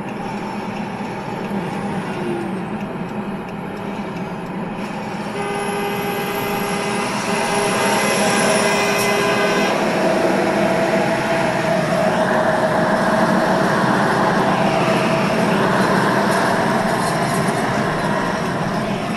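Steady road and engine noise inside a car cabin at highway speed. About five seconds in, a horn sounds steadily for about four seconds. The road noise grows louder about halfway through.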